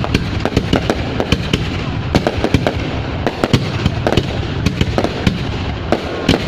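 Fireworks going off in a dense barrage: many sharp, irregular bangs and crackles, several a second, over a continuous wash of further bangs.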